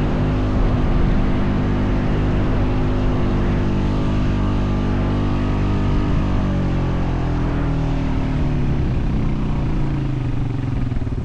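Honda Foreman 520 ATV's single-cylinder engine running under load while towing another ATV on sand, revs steady at first and then gradually dropping over the last few seconds.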